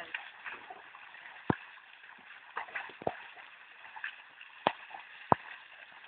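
Water sloshing and gurgling, with four sharp knocks spread through.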